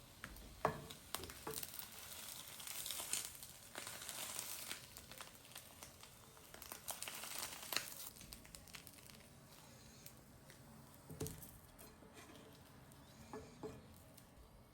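Packaging crinkling and rustling as it is handled in bursts, with a few light clicks and knocks.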